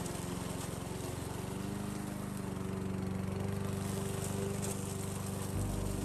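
Gasoline engine of a remote-control crawler lawn mower running at a steady pitch as the tracked mower drives and cuts through tall grass.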